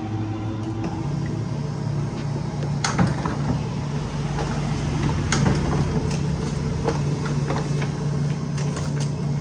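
Canon imageCLASS MF221D laser printer printing a test page: a steady motor hum with several sharp clicks and clacks from the paper feed mechanism.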